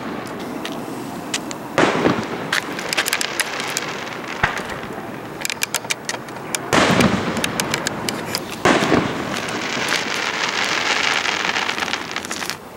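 Aerial fireworks shells bursting: three loud booms, about two, seven and nine seconds in, with quick runs of crackling between them and a dense crackle in the last few seconds.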